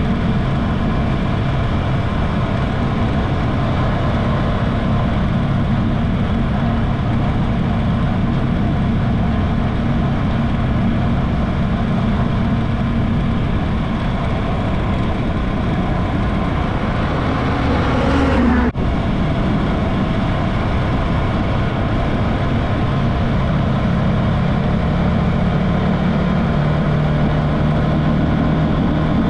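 An engine runs steadily under a continuous rumble. About two-thirds of the way through it rises briefly in pitch, then cuts off abruptly and the steady running resumes at once.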